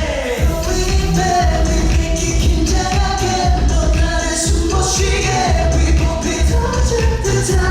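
K-pop boy group singing over a pop backing track with a heavy bass beat, played loud through a venue sound system.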